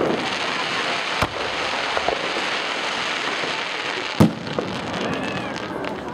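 Aerial firework shells bursting: a steady crackling hiss from the burning stars, with sharp bangs about a second in and again, loudest, a little after four seconds.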